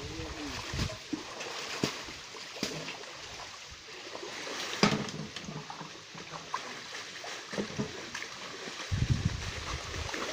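Shallow pond water splashing and sloshing as a plastic bucket and hands are dipped in and lifted out, with scattered knocks, the sharpest about five seconds in.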